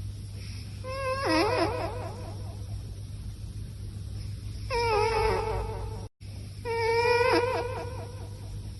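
A sleeping cat snoring: each breath gives a high, wavering tone lasting under a second, heard three times a few seconds apart.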